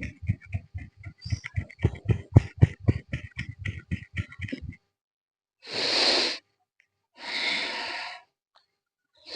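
A person doing pranayama breathing exercises: rapid, rhythmic short forceful breaths through the nose, about four a second, which stop about five seconds in. Two long deep breaths follow.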